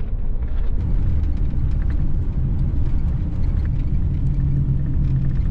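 A van driving on the road, heard from inside the cabin: a steady low rumble of engine and tyres.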